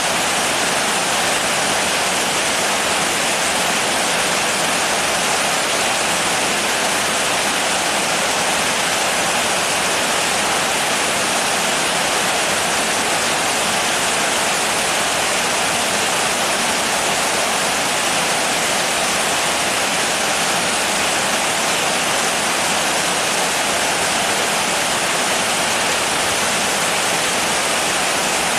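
Steady rain, a dense even hiss with no single drops standing out.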